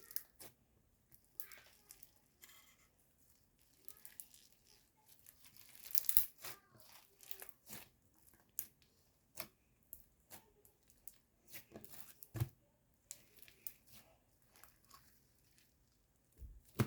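White crunchy slime being squeezed and pressed by hand, giving irregular crackling and popping clicks, with a louder burst of crackles about six seconds in.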